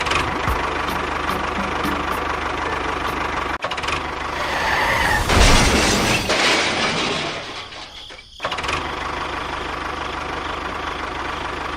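An engine running steadily, swelling louder about five seconds in and briefly dropping out around eight seconds before picking up again.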